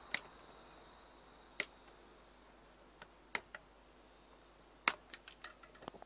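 Flush side cutters snipping soldered component leads off a circuit board: four sharp snips about a second and a half apart, with a few fainter clicks near the end.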